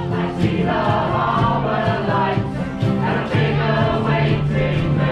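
Shanty band performing live: several voices singing together over strummed acoustic guitars.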